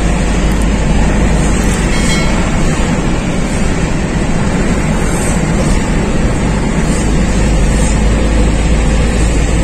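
Steady road and engine noise of a car driving along a city street, heard from inside the car.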